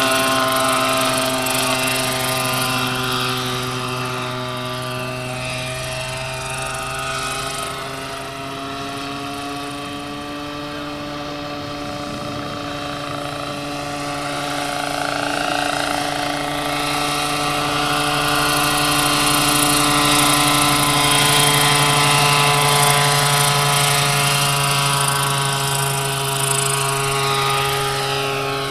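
Large radio-controlled scale model Bell 47G helicopter in flight, its rotor and engine giving a steady whine of several tones that bend slightly in pitch as it moves. The sound fades somewhat midway as it flies off, then grows louder again as it comes back closer.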